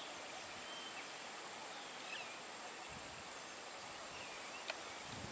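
Steady outdoor ambience: a constant high-pitched insect drone with a few faint bird chirps, and a single short click near the end.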